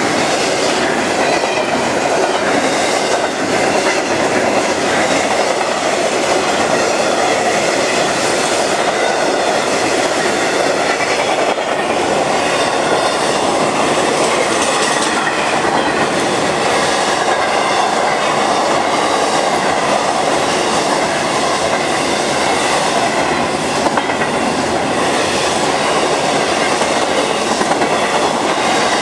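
CSX intermodal freight train of double-stack container and trailer cars passing close by at speed: loud, steady rumble and rattle of the cars and wheels on the rails.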